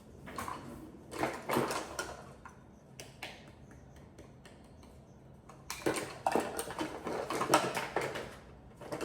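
Kitchen things clattering and rustling as someone rummages through drawers and cupboards, in two spells of quick knocks and rattles with a quiet gap in the middle.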